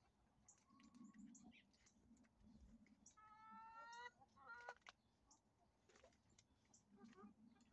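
Hens clucking faintly while pecking at scattered crabapples, with one drawn-out call about three seconds in and a few short clucks just after it.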